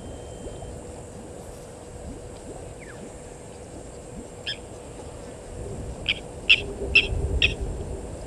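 A bird calls over a steady low rumble: one sharp note about halfway, then a run of four sharp notes about half a second apart near the end, with a faint falling chirp earlier.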